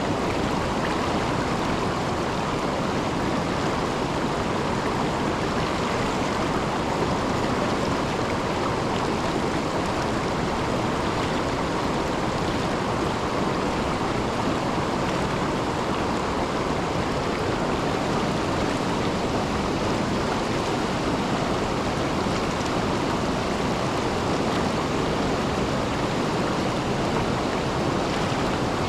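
River water rushing steadily over a low waterfall and rapids: a constant, even rush that does not change.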